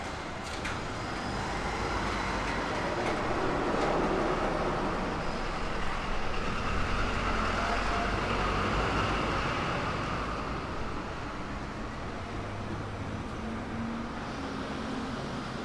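A vehicle passing: its running noise swells over several seconds, then fades away.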